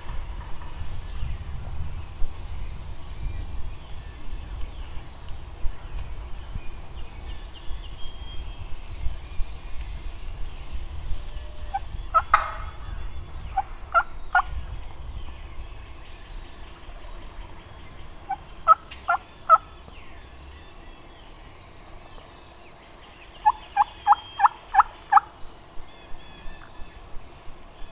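Wild turkey gobblers gobbling: three rapid, rattling gobbles, about twelve seconds in, about nineteen seconds in, and near the end, the last the longest.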